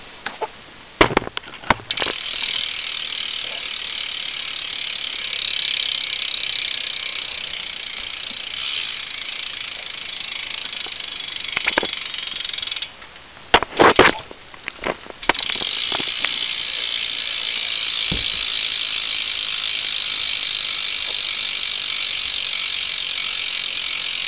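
Proper Magnalite BMX cassette hub freewheeling as the rear wheel is spun, its pawls ratcheting in a fast, steady buzz of clicks. It runs about eleven seconds, stops with a few knocks, then comes back for a second spin of about nine seconds.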